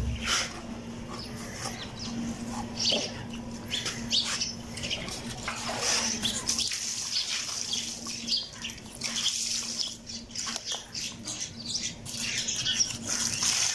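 A knife slicing and scraping as cowhide is cut away from a fresh carcass, in short, irregular strokes.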